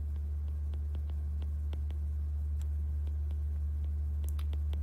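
A steady low hum, with faint irregular ticks of a stylus tapping and writing on a tablet's glass screen.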